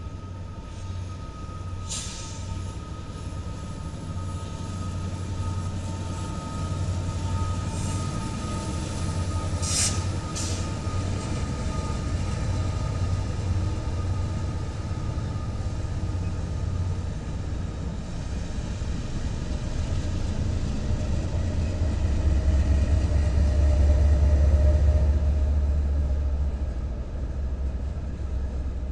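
Norfolk Southern diesel freight locomotives and cars rolling past, a steady low engine rumble that grows loudest as a locomotive comes closest about 22 to 26 seconds in. A few sharp metallic clanks come about two, eight and ten seconds in, over a faint steady whine that fades through the first half.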